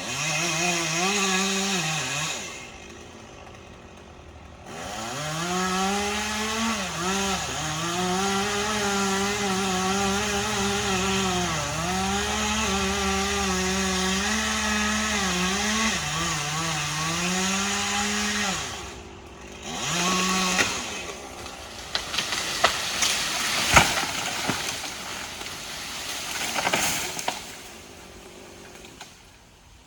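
Chainsaw cutting into a tree trunk at full throttle, its pitch sagging again and again as the chain loads up in the wood. It drops back briefly a few seconds in and stops about two-thirds of the way through, with one short burst after. A scatter of sharp cracks and knocks follows, the loudest one near the end.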